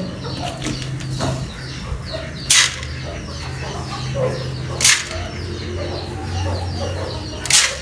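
Backyard chickens and pigeons at feeding, giving many small chirps and clucks. Three short, sharp rushes of noise come about two and a half seconds apart, over a steady low hum.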